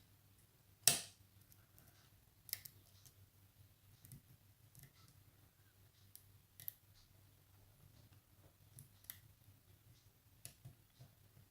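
Faint, scattered clicks of a homemade lock pick working the pins of a pin-tumbler challenge lock as it is picked, with one sharper click about a second in and softer ones every second or two after.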